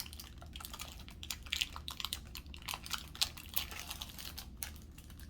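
Crackers in their plastic sleeve being handled: a steady run of small irregular crinkles and clicks.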